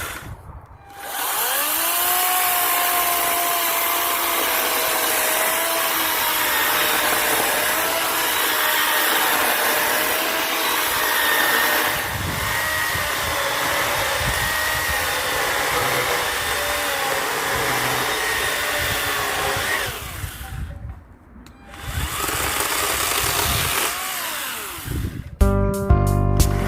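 Ferrex battery chainsaw cutting through logs: a long steady cut with the motor whine wavering under load, a short pause, then a second, shorter cut. Music comes in near the end.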